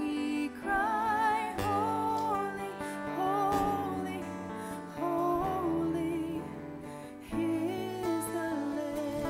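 A woman singing a slow worship song, holding long notes with vibrato, over acoustic guitar and steady sustained chords.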